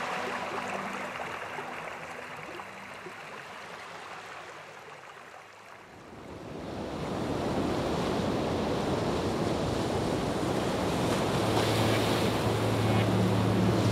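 Soundtrack transition: soft background music fades out over the first few seconds, then a rushing wash of noise like surf swells up, with a low drone coming in near the end as the next piece of music starts.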